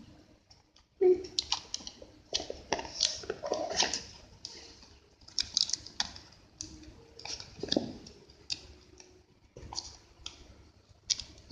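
Paper and sticky tape handled by hand while gluing a paper craft: an irregular run of small clicks and crinkles.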